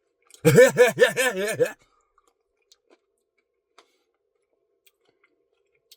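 A man's voice warbling a short wordless sing-song, its pitch rising and falling about six times in quick succession over just over a second. After it come a few faint mouth clicks from eating.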